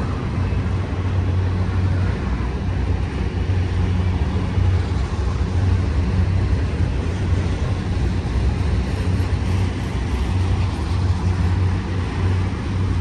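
BNSF autorack freight train rolling past on the climb, a steady continuous rumble of the cars on the rails with a strong low hum underneath.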